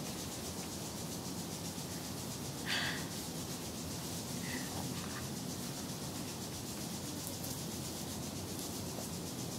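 Steady background hiss with a faint low hum, and a brief soft noise about three seconds in.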